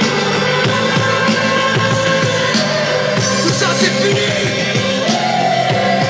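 Loud live rock band music with a steady drum beat and sustained instrumental chords, heard through the PA from within the concert crowd.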